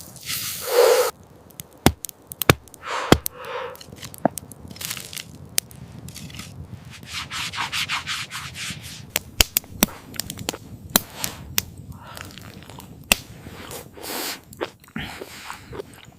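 Rubbing and scraping noises in short and longer stretches, broken by many sharp clicks and snaps.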